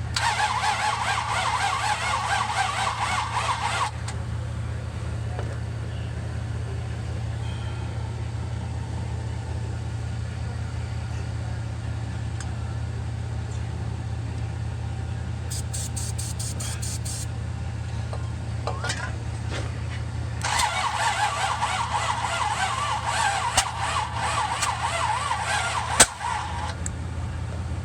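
1966 Buick Riviera's Nailhead V8 cranked by the starter twice, a few seconds then about six seconds, without catching despite starter fluid in the carburettor. One sharp pop near the end of the second crank, the kind of backfire spit from the carb that this engine gives. A steady low hum runs underneath.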